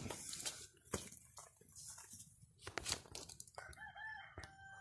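Faint scattered crackles and clicks, then a small bird chirping with short whistled notes from about three and a half seconds in.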